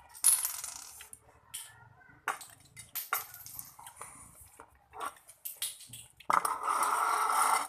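Eating at a table of instant noodles: scattered clinks of cutlery on dishes and noisy mouth sounds, ending with a loud, steady slurp of noodles lasting over a second.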